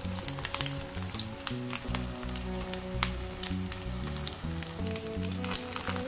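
Zucchini and rice patties frying in shallow oil in a pan, sizzling steadily with many small crackles of spitting oil. Background music plays underneath.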